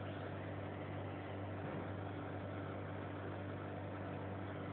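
An engine or motor running steadily: an even, low hum that does not change.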